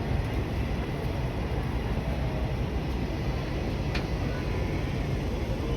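Steady low rumble of a train running, with a brief click about four seconds in.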